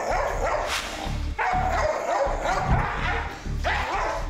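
Muzzled Dalmatian barking hard and repeatedly at an unfamiliar person while it nips at him, with background music underneath.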